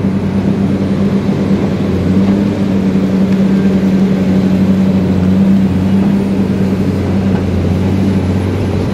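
Hydraulic excavator's diesel engine running steadily under load, heard from the cab, with a deep, even hum that swells slightly in the middle.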